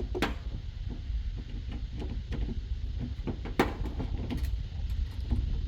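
Clicks, knocks and clatter of hands working the power filter loose from a washing machine's chassis, with two sharper clacks, one just after the start and one a little past halfway. A steady low hum runs underneath.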